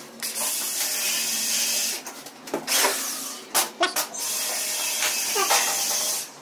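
Cordless drill running in two steady stretches of about two seconds each, driving screws to fix PVC ceiling panels and edge trim to the metal framing. A few sharp knocks fall between the two stretches.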